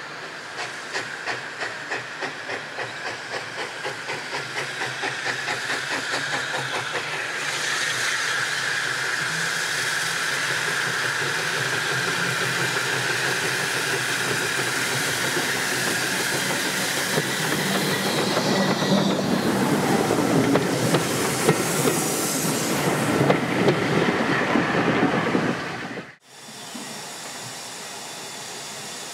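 LNWR 'Coal Tank' 0-6-2 tank steam locomotive working a train toward and past the listener. Regular exhaust beats grow louder as it approaches, a steady hiss of steam joins in, and the wheels clatter over the rail joints as it passes close by. After a sudden cut near the end, a steady hiss of steam remains.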